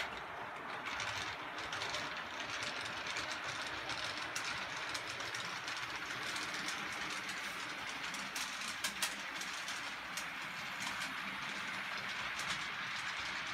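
HO scale model train running along the layout's track: a steady rolling noise with scattered sharp clicks of the wheels, two louder clicks about nine seconds in.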